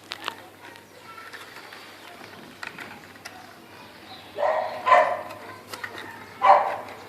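Three short animal calls, two close together about four and a half to five seconds in and a third about six and a half seconds in, with light clicks between them.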